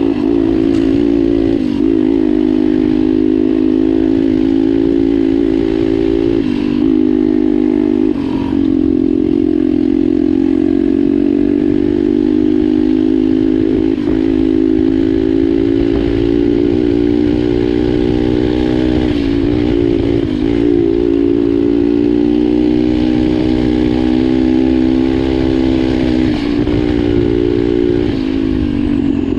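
Pit bike's single-cylinder engine running hard at a fairly steady pitch while the bike is ridden, with several brief dips in engine speed along the way.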